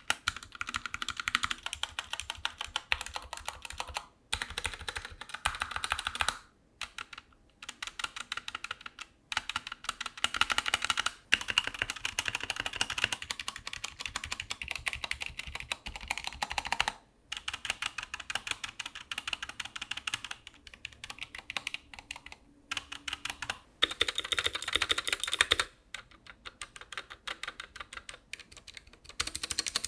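Rapid typing on Keychron wireless mechanical keyboards with Gateron switches: dense runs of key clicks in several bursts, broken by short pauses.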